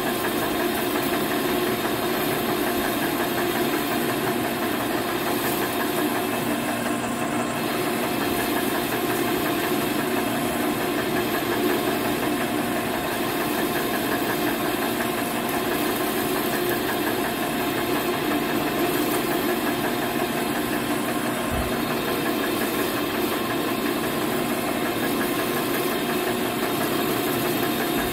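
Manual metal lathe running under cut, a tool bit peeling curled chips off the spinning workpiece: a steady machine hum and whine with many fixed tones that holds unchanged.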